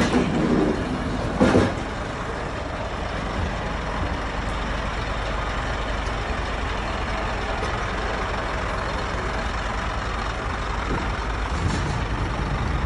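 Diesel engine of a Scania delivery truck running steadily at idle, a low even rumble. A single sharp knock sounds about a second and a half in.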